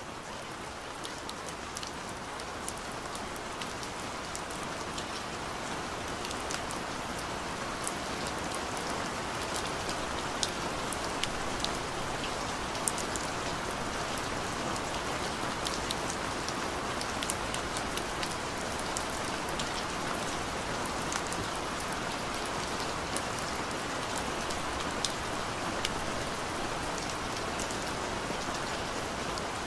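Steady rain falling: a continuous hiss with many scattered drop ticks, swelling in over the first several seconds.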